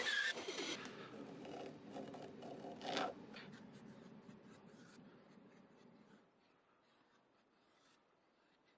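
Faint, irregular scraping and rubbing, with one louder scrape about three seconds in, fading to near silence after about five seconds.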